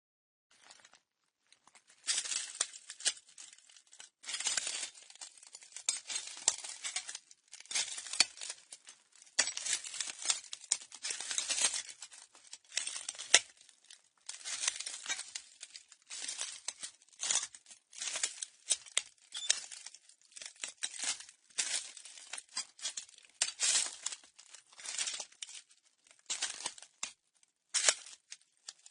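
Slow footsteps crunching over broken glass, each step a gritty crunch and grind of shards underfoot, about one step a second, starting about two seconds in.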